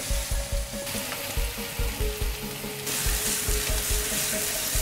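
Cubed pumpkin sizzling in hot olive oil in a nonstick frying pan, a steady frying hiss that grows louder about three seconds in.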